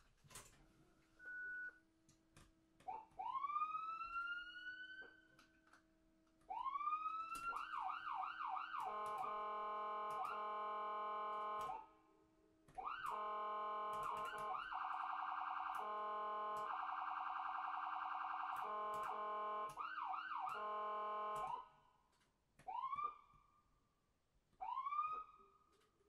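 Electronic ambulance siren: short rising whoops, then a held steady tone, a fast warbling yelp, and more whoops that fade away near the end.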